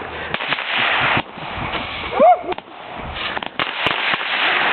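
Backyard fireworks going off: stretches of hissing spray broken by sharp crackles and pops. About two seconds in comes a short cry that rises and falls in pitch.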